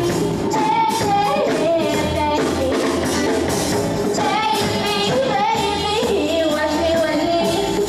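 A woman singing a melody into a handheld microphone, amplified, over accompanying music with a steady beat.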